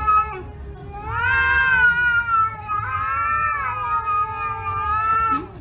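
Angry cats yowling at each other in a fight standoff: long, drawn-out, wavering caterwauls. One yowl trails off just after the start, and a second lasts about four seconds, swelling up in pitch twice.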